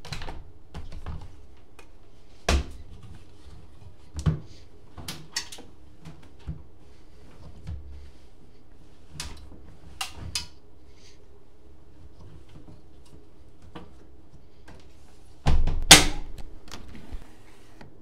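Laundry being loaded by hand into the drum of a front-loading Candy GrandÓ GO145 washing machine: fabric rustling and a string of sharp clicks and knocks from the door and drum, with a louder clatter near the end.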